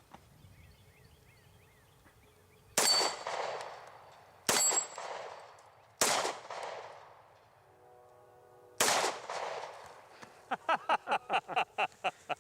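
Four shots from a Kahr CW-series double-action-only pistol, fired singly at uneven intervals of about one and a half to three seconds. Each shot is a sharp crack with a long echoing tail. Near the end comes a rapid run of about ten sharp ticks.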